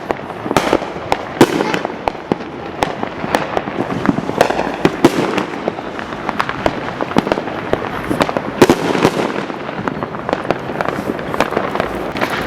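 Fireworks and firecrackers going off all around in quick, irregular succession: many sharp bangs and pops, several a second, over a constant din of more distant bursts.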